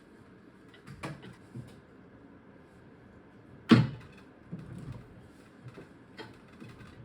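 Scattered clicks and clinks of metal tools or parts being handled, with one louder knock about three and a half seconds in.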